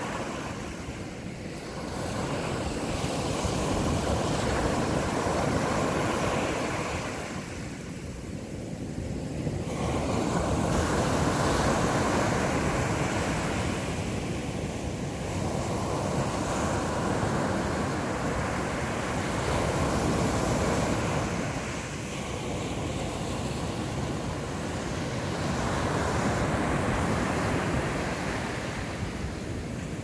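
Surf breaking on a sandy beach in a rough post-typhoon sea. A continuous rushing wash swells and fades every several seconds as each wave breaks and runs up the sand.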